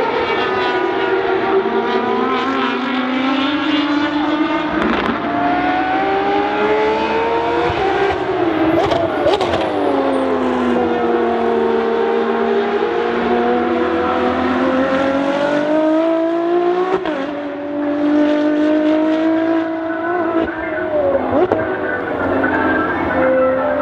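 Ferrari XX-programme V12 track cars running hard on a circuit, the engine note climbing and falling through acceleration, gear changes and braking, with sudden pitch breaks several times.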